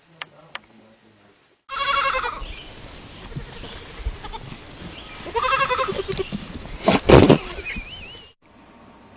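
An animal's quavering bleat-like call, heard twice, about two and five seconds in, followed by a short loud noisy burst.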